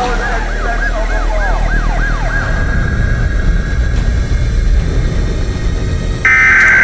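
Emergency vehicle siren yelping in quick rising-and-falling sweeps over low rumbling street noise, settling to a steady tone and dropping away after about three seconds. Near the end a loud, harsh Emergency Alert System data burst begins.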